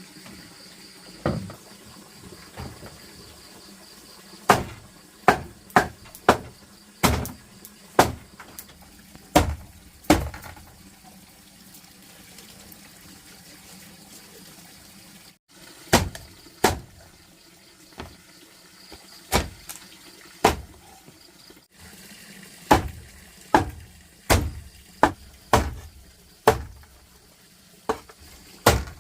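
A series of sharp knocks, one about every second or so at an uneven pace, pausing for a few seconds in the middle.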